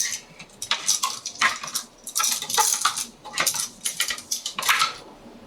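A wired electrical receptacle and its wires being folded and pushed into an electrical box: an irregular run of clicks and scrapes that dies down near the end.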